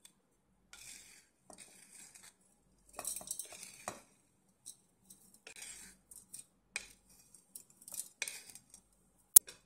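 Roasted coconut-and-spice mixture scraped out of a pan into a stainless steel mixer-grinder jar in about five short scrapes, the dry crumbs falling into the steel jar. A single sharp click near the end is the loudest sound.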